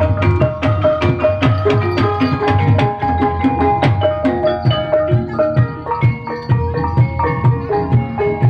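Javanese gamelan music for an ebeg trance dance: mallet-struck keyed instruments playing a repeating melody over a steady pulse of drum strokes.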